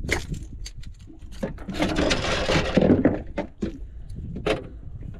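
Clicks, knocks and scraping of hands and pliers working a popper lure's hooks free from a giant trevally's mouth on a boat deck, with a louder scraping rush about two seconds in.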